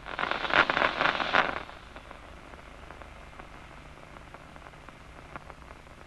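Amplified nerve recording from a locust's DCMD neuron played as sound: a dense crackling burst of action-potential spikes for about a second and a half as the eye is stimulated, then a faint steady hiss with a few scattered clicks, the resting state.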